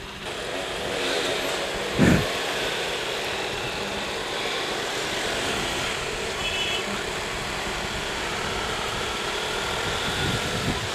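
Motorcycles running on the road amid steady wind and road noise, with a short loud rush about two seconds in and a brief high beep near the middle.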